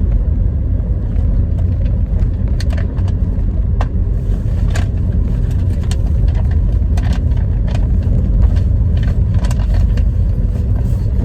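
Steady low rumble of a moving car's road noise, with scattered light clicks and rustles.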